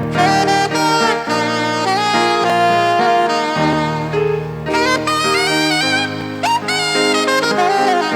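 Instrumental music: a lead melody that slides and bends in pitch, with quick runs about halfway through, over sustained chords.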